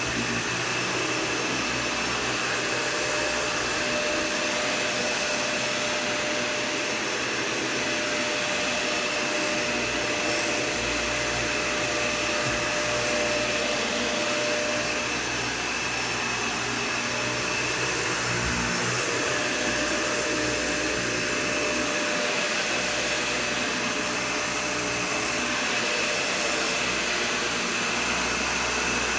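Dyson Ball Total Clean upright vacuum cleaner running steadily, a constant whine over the rush of its airflow.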